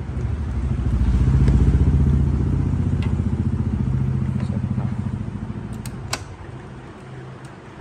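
A motor vehicle engine passing by, swelling to its loudest about a second and a half in and fading over the next few seconds. Two sharp clicks about six seconds in.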